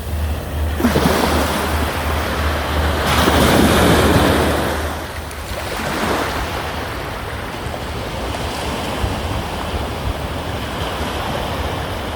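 Sea waves breaking on a shore: one wave crashes about a second in, a bigger one swells and breaks around four seconds, then a steady wash of surf, with wind.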